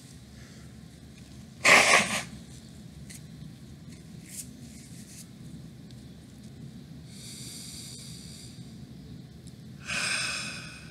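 A man sneezing loudly about two seconds in, with two or three quick peaks. Later come a couple of high, whistling breaths, the last and louder one near the end.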